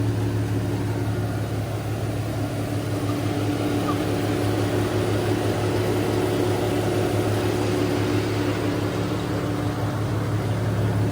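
Infiniti G37's 3.7-litre V6 idling steadily through an ISR single-exit exhaust, with an even, unchanging exhaust note.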